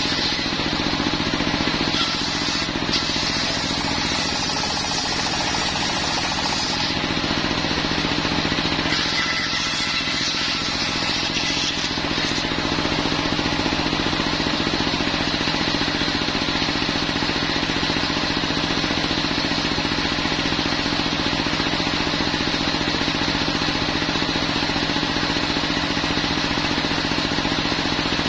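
Homemade belt-driven circular sawmill powered by a stationary single-cylinder diesel engine, running steadily. For roughly the first twelve seconds the blade cuts through coconut wood, adding a higher, rougher noise over the engine. After that the engine and free-spinning blade run on evenly.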